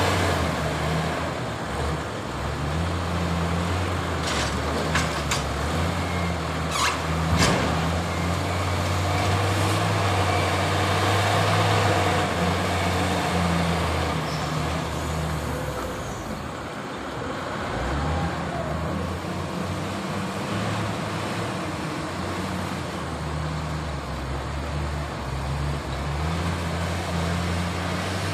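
Diesel engine of a wheel loader with a log grapple working, its low note rising and falling with the load and dipping briefly about seventeen seconds in. A few sharp knocks come about four to seven and a half seconds in.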